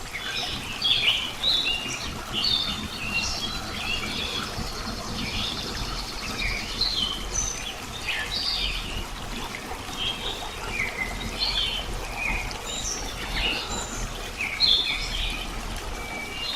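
Many small birds chirping and calling in quick, overlapping short notes, over a steady trickle of running water.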